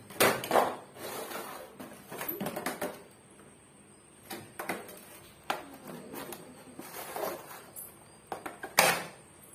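A hollow white plastic tray being handled: irregular knocks, clicks and scrapes as it is lifted, set down and has picture discs fitted into it. There is a louder knock near the start and another near the end.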